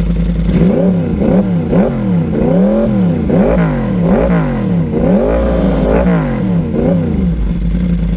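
2013 Yamaha R1's crossplane inline-four through a TOCE exhaust, idling, then revved in a series of quick throttle blips about one a second, settling back to idle near the end.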